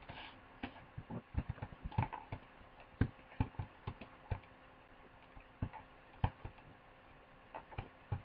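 Irregular, faint clicking from a computer mouse and keyboard while the 3D view is being operated. The clicks are bunched in quick runs in the first half and grow sparser later.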